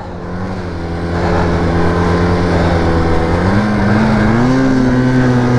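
Arctic Cat F1100 four-stroke snowmobile engine running steadily under throttle. A little past halfway it picks up in pitch and holds the higher note.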